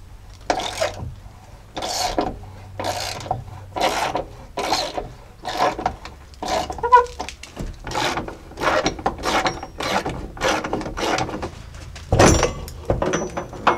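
Hand ratchet clicking in repeated strokes, about two a second, as the door hinge bolts on a 1999 Jeep Cherokee XJ are backed out. A louder knock comes near the end.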